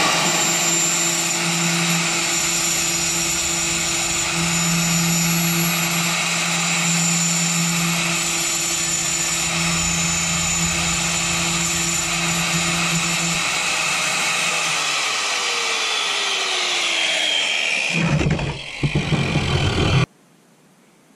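Angle grinder cutting a ceramic wall tile, its motor running with a steady whine. A little over halfway through it is switched off and winds down in a falling whine. Near the end comes a brief, louder rough noise.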